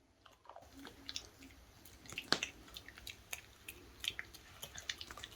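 Small wet clicks and smacks at an irregular pace from a Maltese puppy's mouth, licking and chewing.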